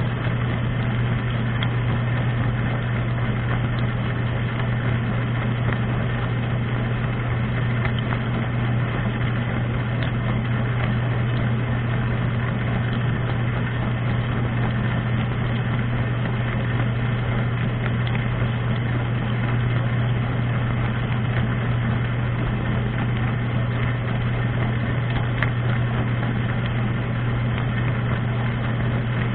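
Dishwasher running mid-cycle, heard from inside the tub: a steady low hum from its wash pump motor under a constant rush of water noise, unchanging throughout.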